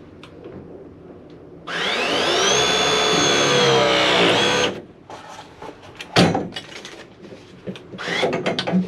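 A power tool's electric motor spins up with a rising whine, runs steadily for about three seconds, then stops abruptly. A single sharp knock follows a little later, among clicks of handling.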